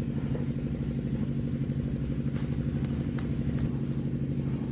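An engine idling steadily with a fast, even pulse.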